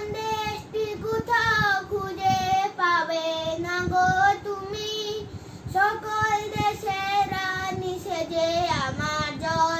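A child singing solo, holding long notes with slow glides between them.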